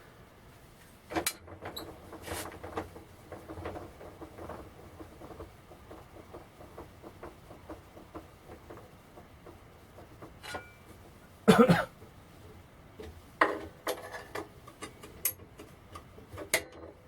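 Irregular metal clinks, knocks and rattles of hand tools and saw parts being handled while dado blades are taken off a table saw's arbor, with one loud clank about eleven and a half seconds in.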